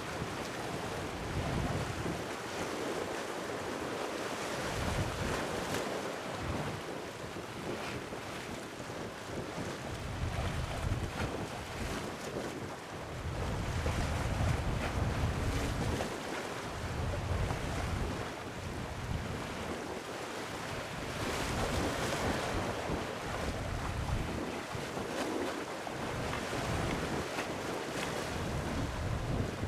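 Sea waves washing steadily, with wind gusting against the microphone in irregular low rumbles every few seconds.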